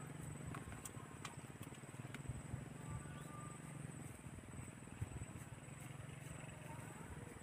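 Faint steady low hum of a distant engine, dropping out briefly a little after the middle, with a few small clicks over it.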